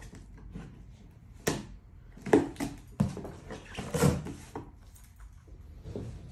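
Cardboard shipping box being handled: its flaps are folded and the box is shifted on the table, giving a few sharp knocks and short rustling scrapes of cardboard.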